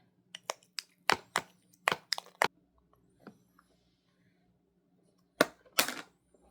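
Tableware knocks and clicks at a meal table: a quick run of about eight sharp taps in the first two and a half seconds, one more around the middle, and two louder knocks near the end.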